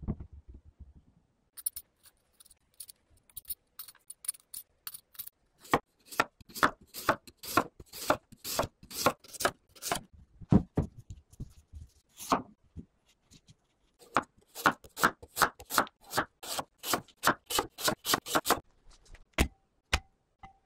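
Chef's knife slicing raw unpeeled potatoes into thin rounds on a wooden cutting board: a quick run of crisp knocks of the blade through the potato onto the board, about three a second, with a short pause just past the middle.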